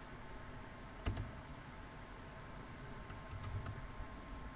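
Computer mouse clicking: one clear click about a second in, then a few fainter clicks a little past three seconds, over quiet room hiss.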